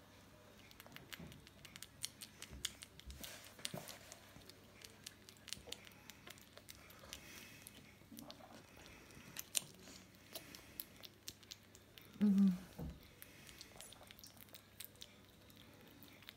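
Baby grey squirrel nibbling and chewing a piece of cake: a quick, irregular run of tiny sharp clicks and crunches from its teeth. A short, louder low-pitched sound breaks in about three-quarters of the way through.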